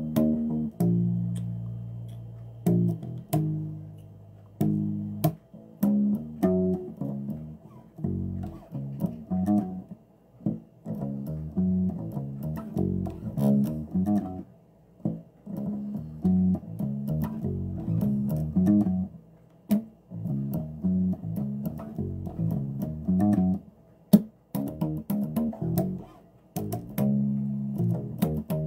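Bass guitar played solo: a loose, wandering line of plucked notes, each ringing and fading, with a few short pauses.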